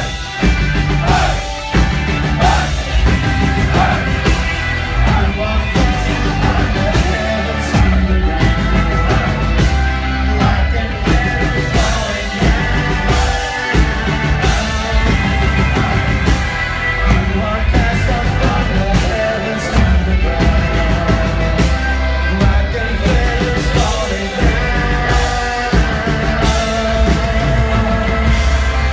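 Heavy rock band playing live, with singing over drums and distorted guitars, loud and continuous, recorded on a phone from inside the crowd.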